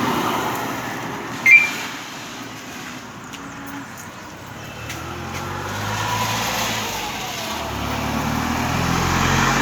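A motorcycle alarm gives one short high chirp. From about five seconds in, the motorcycle's engine runs at a low, steady idle after being started from the alarm's remote control.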